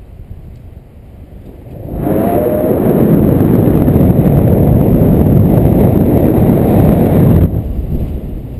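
Loud wind rushing over the microphone of a tandem paraglider's selfie-stick camera, airflow from the glider's banking descent. It starts suddenly about two seconds in and cuts off abruptly near the end.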